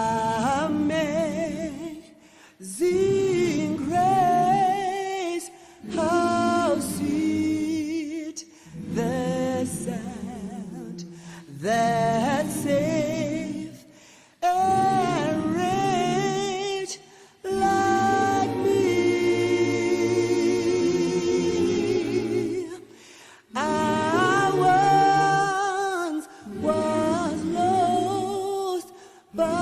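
Unaccompanied a cappella singing by several voices, in sustained phrases of a few seconds with vibrato, each followed by a short pause for breath.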